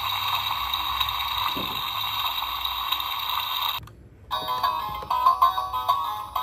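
Toy dollhouse's electronic sound chip: a steady buzzing, ringing sound effect set off by pressing the toy kitchen stove, which cuts off suddenly about four seconds in. After a brief gap an electronic tune of quick beeping notes begins.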